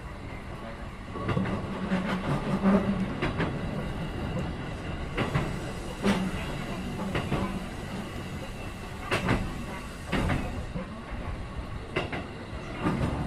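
Running noise heard inside a Keikyu 1500 series electric train car refurbished with Mitsubishi IGBT-VVVF equipment: a steady low hum under irregular clatter and knocks from the wheels passing over rail joints and points.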